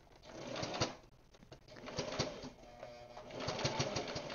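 Miniature sewing machine stitching slowly in three short runs through bulky layers of cotton, its motor labouring against the thickness.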